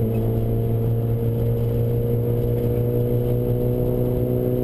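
Opel Astra F GSi Group N rally car's four-cylinder engine heard from inside the cabin, pulling at steady revs with an unchanging pitch over constant road noise.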